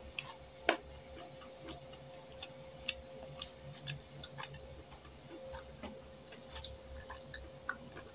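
Eating by hand: irregular small clicks and smacks of chewing and of fingers working rice against a plate, one sharper click under a second in, over a steady high thin whine.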